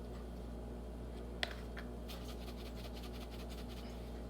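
Faint ticking as pepper is dispensed into the dressing: one soft click, then a short run of rapid light ticks, over a steady low hum.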